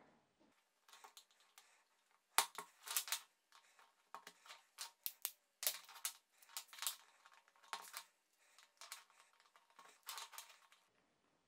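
White plastic pipe clips clicking and clacking against each other and the bench as they are handled and snapped together into rows, in irregular clusters of sharp clicks with short pauses between.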